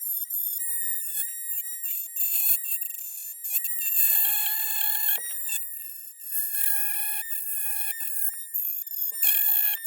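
High-speed Dremel-type rotary tool whining as it grinds into a Glock's polymer frame, cutting the finger undercut. The high whine dips and breaks off briefly many times as the bit works the plastic.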